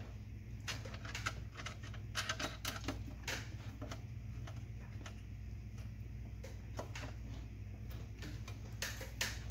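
Irregular small metallic clicks and taps as bolts and nuts are fitted by hand inside a sheet-metal electrical enclosure, over a steady low hum.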